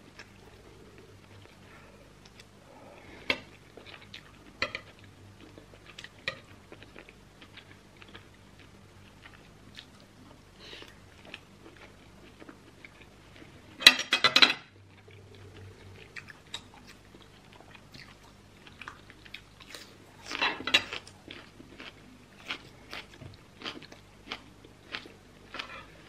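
Close-up chewing of a mouthful of rice and saucy beef, with wet mouth clicks scattered through, coming about twice a second near the end. About halfway through, a brief, louder clatter of a metal spoon against the plate is the loudest sound, and a second, softer burst follows a few seconds later.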